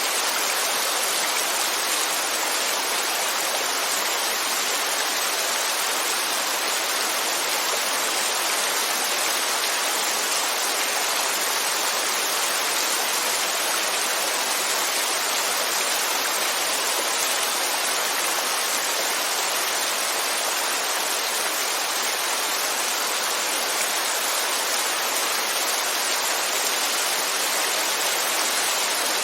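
Steady rain falling, a dense even hiss with no single drops standing out.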